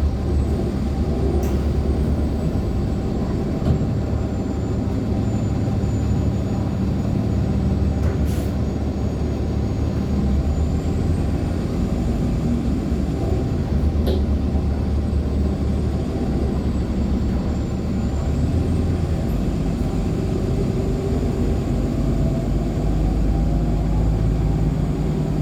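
Inside a 2014 NOVA LFSA HEV articulated hybrid bus under way: its Cummins ISL9 diesel and drivetrain run with a steady low rumble. A faint high whine drifts slowly in pitch over it, and a few sharp rattles from the body come through about a second in, around eight seconds in and around fourteen seconds in.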